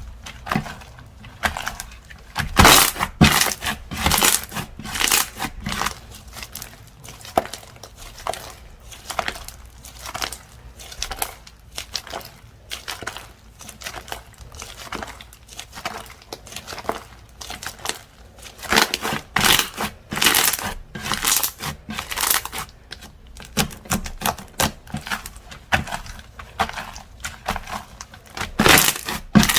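Slime being squished and stretched by hand: a dense, irregular run of clicks and pops, louder in stretches about three seconds in and again about twenty seconds in.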